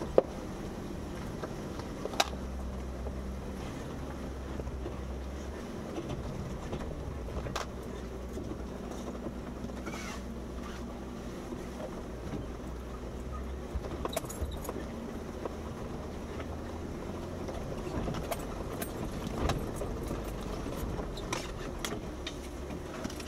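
Jeep Wrangler Unlimited Rubicon engine running steadily at low speed as it crawls the trail, with scattered knocks and rattles from the vehicle and loose items, two sharp knocks in the first couple of seconds.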